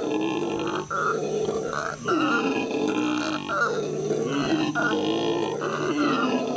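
Black howler monkeys howling: a loud, nearly continuous run of deep calls that rise and fall in pitch, broken by short gaps about one and two seconds in.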